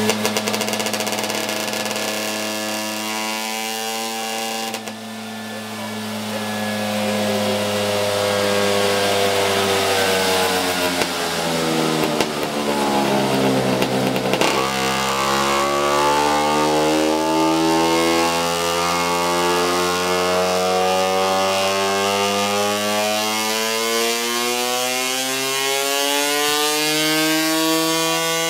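Tuned two-stroke Vespa scooter engine running hard on a roller dynamometer: the engine speed sags over the first half, bottoms out about 14 seconds in, then climbs steadily through a long power run.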